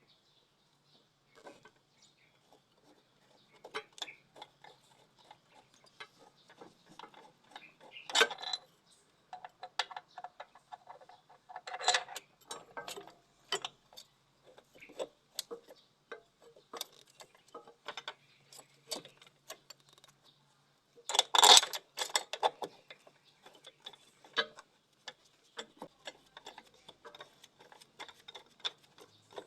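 Hand tools on metal engine parts: irregular metallic ticks and clinks, with a few louder clattering bursts, as the cleaned EGR valve is fitted back on.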